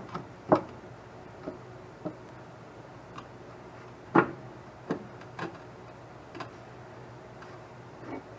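Irregular sharp clicks and knocks of hand tools on metal suspension parts, the two loudest about half a second and about four seconds in, over a faint steady hum.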